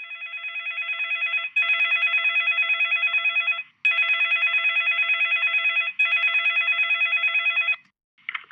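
Telephone ringing: a fast, trilling ring that swells up at first, then sounds in long rings of about two seconds with short gaps, stopping near the end, followed by a brief short sound.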